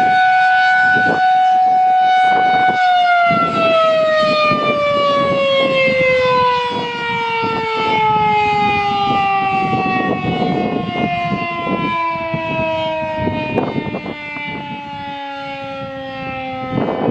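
Federal Signal 2001-130 rotating single-tone electromechanical outdoor warning siren, holding a steady tone and then, about three seconds in, shut off and winding down, its pitch falling slowly and steadily as the rotor coasts to a stop.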